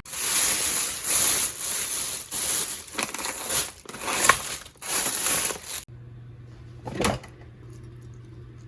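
Irregular rustling, crinkling noise in uneven swells for about six seconds, cutting off abruptly; then a faint low steady hum with a single click.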